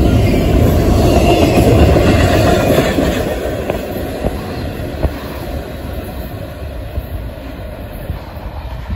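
Double-stack container freight cars rolling past on the rails, their wheels clattering over the track. The noise eases off from about three seconds in as the end of the train draws away, with a few sharp clanks.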